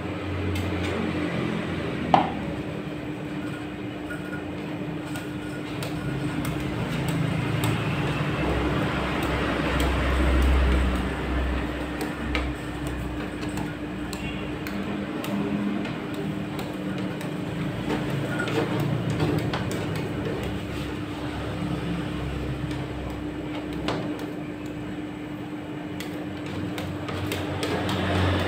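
Rolled ice cream machine's refrigeration unit humming steadily while metal spatulas scrape and tap across its cold steel plate, spreading the ice cream mix. A sharp click about two seconds in.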